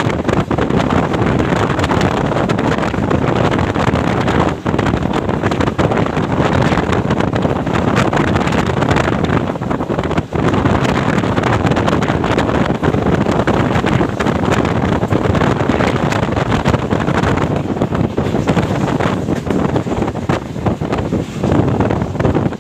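Moving passenger train running at speed, a steady loud rush of wind buffeting the microphone over the rumble of the coach.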